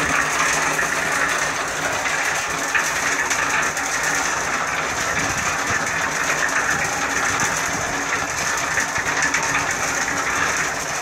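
Electric concrete mixer running with a steady mechanical drone, its drum turning slowly and winding steel rebar around a wooden jig in the drum mouth to bend it into stirrups.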